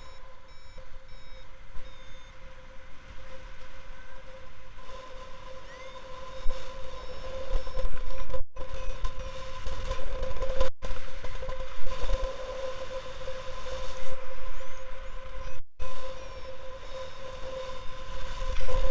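Wind rushing over the microphone of a paraglider in flight, growing stronger about five seconds in, with a steady tone running through it. The sound cuts out completely for a split second four times.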